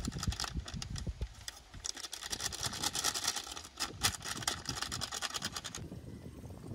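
Paper sachet of herbicide powder crinkling and rustling as it is shaken out over a metal bucket of water: a dense run of small crackles that cuts off near the end.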